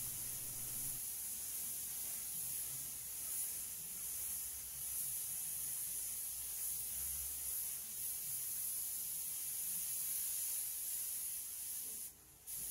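Gravity-feed compressed-air spray gun with a 1.8 mm tip spraying primer: a steady hiss that cuts out briefly near the end, then starts again.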